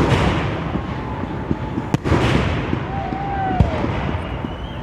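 Aerial fireworks bursting: a sharp bang at the start and another about two seconds in, each trailing off in a rumble, with steady crackling between them.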